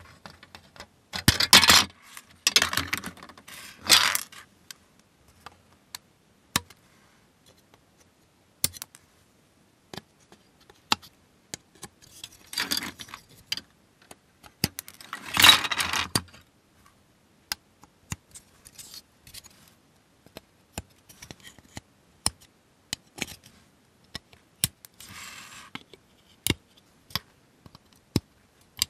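Hobby side cutters snipping plastic model parts from the sprue, a string of sharp clicks. Between the snips the plastic sprue frame and parts rattle and scrape as they are handled, loudest in short bursts early on and again in the middle.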